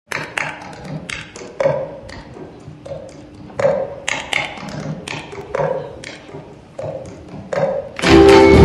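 Plastic cups tapped and knocked on a wooden floor by a group of players doing the cup-game routine, sharp taps falling in a pattern that repeats about every two seconds. Music begins just before the end.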